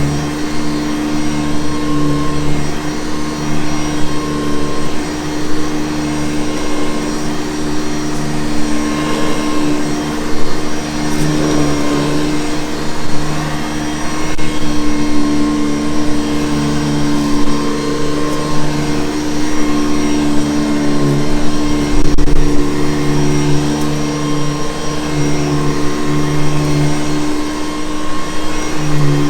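Vintage Hoover Convertible U4387 upright vacuum cleaner running, a steady motor hum that swells and dips slightly in loudness.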